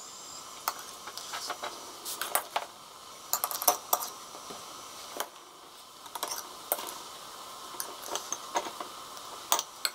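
Metal spoon clinking and tapping against a stainless steel bowl and glass jars as diced black radish is scooped and spooned into half-litre jars: irregular light clinks, several a second in clusters.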